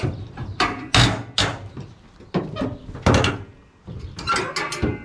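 An irregular series of sharp metal clunks and knocks, about a dozen, from working the lever that swings the boat build's motorbike front wheel up.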